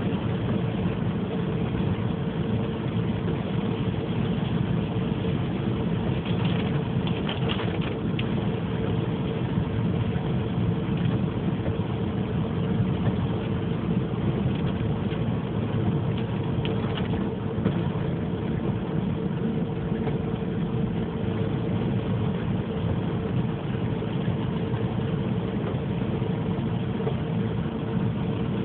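Inside a car driving on rain-wet streets: steady engine and road noise with a constant hum.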